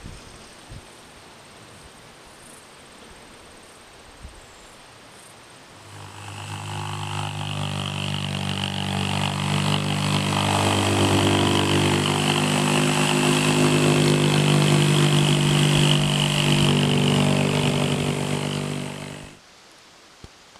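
Ryobi corded jigsaw cutting through OSB subfloor sheathing. It starts about six seconds in, runs steadily for about thirteen seconds and stops abruptly, with quiet outdoor background before it.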